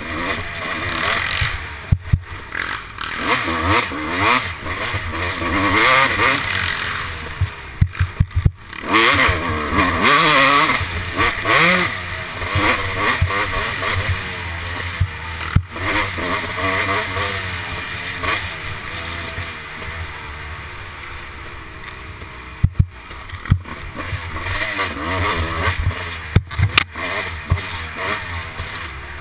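Kawasaki dirt bike engine revving up and down repeatedly as the throttle is worked, heard from the rider's helmet camera with rushing wind. Sharp knocks come every few seconds as the bike hits bumps.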